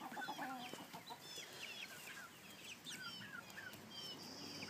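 A flock of laying hens clucking and chirping softly, many short separate calls that fall in pitch.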